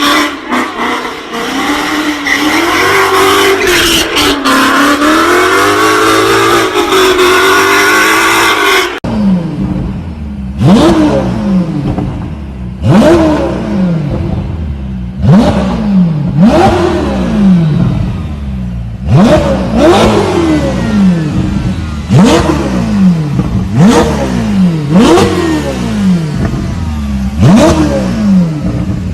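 Supercar engine running with a note that wavers up and down in pitch. About nine seconds in, it changes abruptly to an engine revved in sharp blips every second or two, each jumping up in pitch and falling back down.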